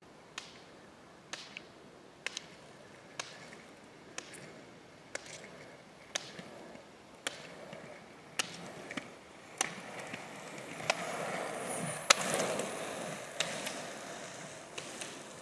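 Roller-ski pole tips striking asphalt about once a second as the skier double-poles. The rolling hum of the roller-ski wheels rises as the skier comes close, with the loudest pole strike about three-quarters of the way through.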